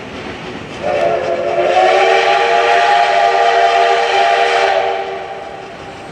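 Steam whistle of the C57 1 steam locomotive, blown in one long blast of several steady tones at once. It starts about a second in, lasts about four seconds and trails off near the end.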